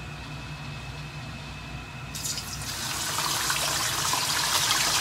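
Pieces of pork belly dropped into hot cooking oil in a wok: the oil begins sizzling suddenly about two seconds in and grows louder as it keeps frying. A steady low hum runs underneath.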